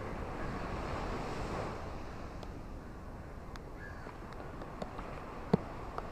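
Ocean surf washing on a beach in light rain: a steady hiss that swells over the first couple of seconds, with scattered sharp raindrop ticks, a louder one about five and a half seconds in. A bird gives a couple of brief calls.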